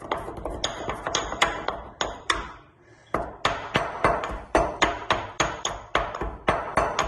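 Whole spices (roasted cardamom and cloves) being pounded to powder in a mortar with a pestle: sharp ringing strikes, about two to three a second, with a short pause about two and a half seconds in.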